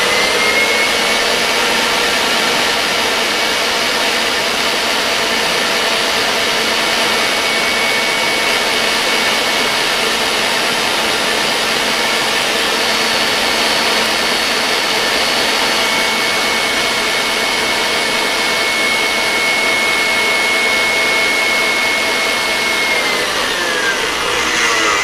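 Stand mixer with a wire whisk running at high speed, whipping chocolate whipped cream in a stainless steel bowl to a stiff peak: a steady motor whine. It winds down and stops near the end.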